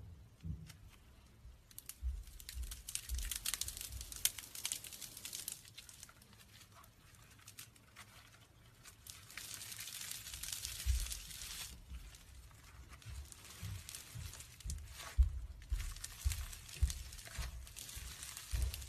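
Crisp crackling and crunching of a crumbly material being crushed and squeezed by hand, in three long bouts with quiet gaps between and small soft thumps.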